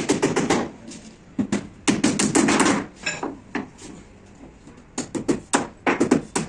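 Hand hammer tapping on wood in quick runs of strikes, with short pauses between the runs.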